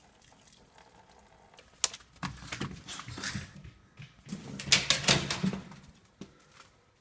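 Crunching steps in fresh snow and rustling handling noise around a doorway, after a sharp click just before two seconds in. The steps are loudest about five seconds in.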